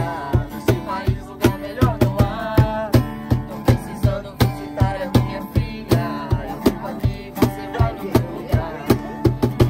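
Live acoustic guitar strummed over a cajón slapped in a steady beat, with a voice singing along.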